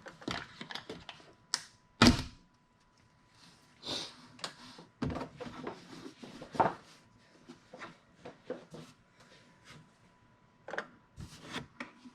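Plastic motor-oil jug and funnel being handled at the engine's oil filler as the oil is poured in: scattered light clicks and knocks of plastic, with one louder knock about two seconds in.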